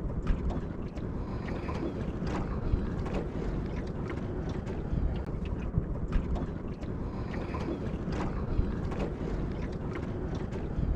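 Wind buffeting the microphone over water lapping against a small boat's hull, with scattered light knocks on the boat.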